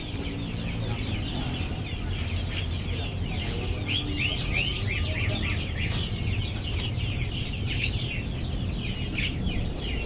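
Fischer's lovebird chattering in full song: a steady stream of rapid, high chirps and short falling notes, thickest about four seconds in and again near the end, over a low background rumble.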